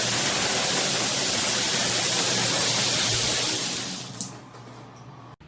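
Shower water spraying steadily from a rainfall shower system, then shut off and dying away about three and a half seconds in, followed by a brief sharp click.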